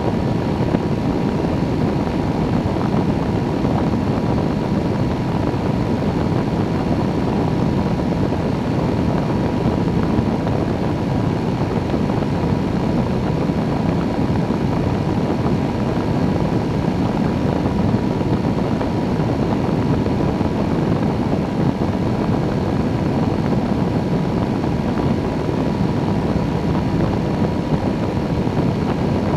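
Microlight trike in level cruise: its engine and rear pusher propeller drone steadily, mixed with a constant rush of wind at the wing-mounted camera, with a faint steady tone above the noise.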